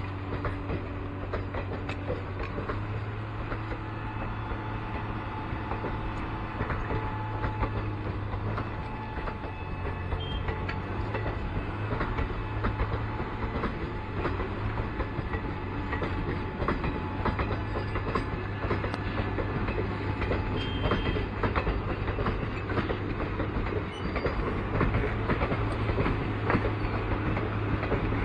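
Passenger coaches of an Indian Railways express train rolling past at low speed as it leaves the station: a steady rumble with frequent clicks and clatter from the wheels on the rails.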